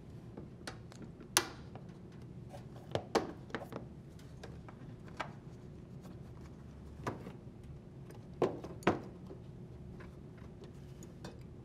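Scattered sharp clicks and taps of a washer door boot seal's wire retaining ring, its spring and a spring tool against the rubber boot and plastic tub as the ring is tucked into the boot's groove. The loudest come about a second and a half in and near nine seconds, over a low steady hum.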